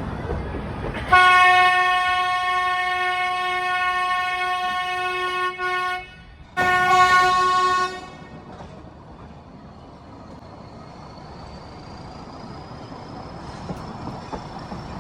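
Train horn: one long blast of about five seconds, then a short second blast, followed by the train running along the track.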